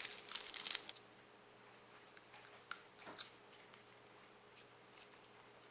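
Plastic wrapper of a Knoppers wafer bar crinkling in a quick burst of crisp crackles in the first second, then a few faint crisp clicks and a soft crunch near the middle as the wafer bar is bitten.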